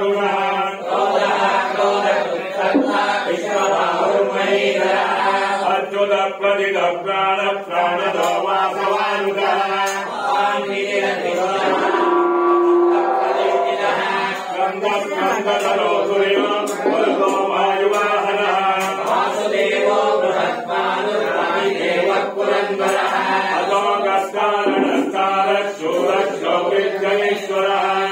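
A group of men chanting mantras in unison from their books, a steady, unbroken chant. About twelve seconds in, one note is held for a second or so.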